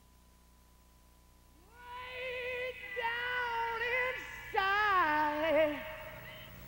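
Music: held, singing-like notes that slide up and down with a waver, starting about two seconds in after near silence with a faint steady tone.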